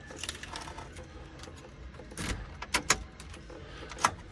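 A few sharp clicks and knocks with some light rattling as things are handled in a small aircraft cockpit, the engine not yet running; the loudest knocks come a little past halfway and near the end.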